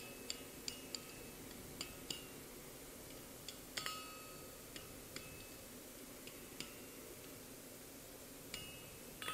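Light, irregular taps and clinks of steel on a blacksmith's anvil, about a dozen, each with a short high metallic ring, as the hot mild-steel spiral and hammer touch the anvil face; the loudest clink comes a little before halfway.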